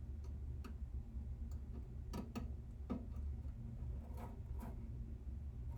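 Faint, irregular light ticks and clicks of a small transistor and circuit board being handled as the component's leads are fitted into the board, over a steady low hum.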